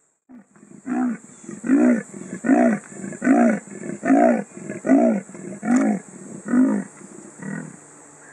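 Male leopard sawing, its call for a mate: about nine deep, hoarse strokes, one a little under every second, the last one weaker.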